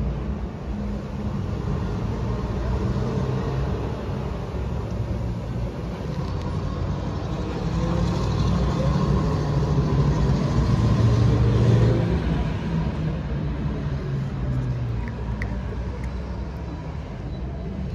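Low, steady rumble of a motor vehicle engine running, swelling to its loudest about twelve seconds in and then easing off.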